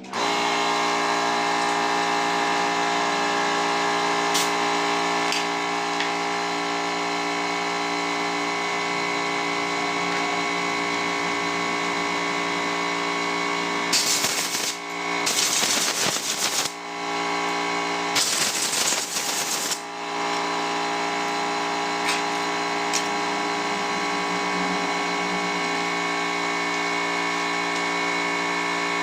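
A steady mechanical hum with many fixed tones, starting abruptly. About halfway through it is broken by three bursts of loud hiss over roughly six seconds.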